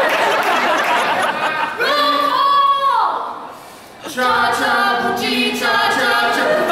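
A man and a woman singing an unaccompanied cheer together in long held notes. The first phrase ends in a downward slide about three seconds in, and after a short break a second phrase moves in steps from note to note. The first second or so is a jumble of mixed voices.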